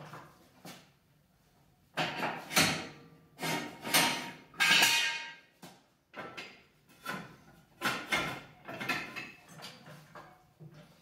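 Red hydraulic floor jack being worked under the front of a car: a run of metallic clanks and scrapes, roughly one a second, as the long handle is pumped. A longer scrape comes near the middle.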